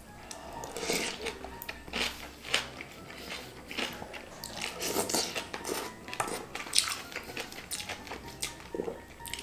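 Close-up eating sounds: noodles slurped up from a spicy soup and chewed, in irregular bursts, with wooden spoon and fork clicking against a glass dish.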